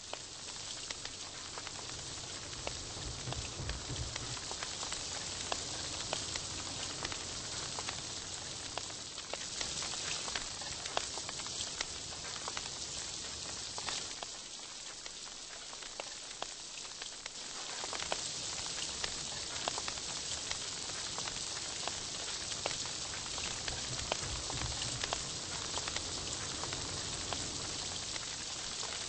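Meat sizzling on a Korean barbecue tabletop grill: a steady hiss full of small crackles and pops, with a low hum coming and going underneath.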